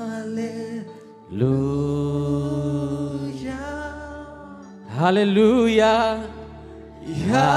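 Church keyboard playing slow, sustained worship chords over low bass notes, changing chord about every two seconds. Near the end a man sings a drawn-out "aleluya" into a microphone over them.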